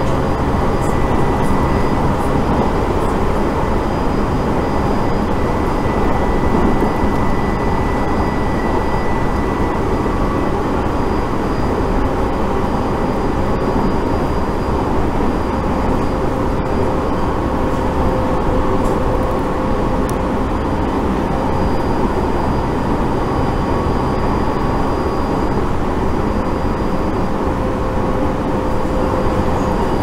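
Tobu Tojo Line electric train running at speed, heard from inside the passenger car: a steady rumble with faint steady high tones over it.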